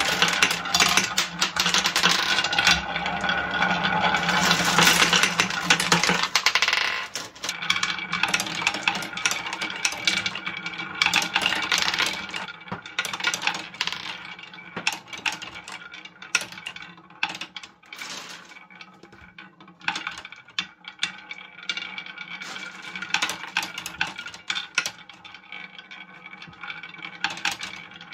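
Marbles rolling down wavy grooved wooden chutes: a dense, continuous rolling clatter for the first six seconds or so, thinning into scattered clicks and clacks as the marbles drop into a wooden tray and knock against one another.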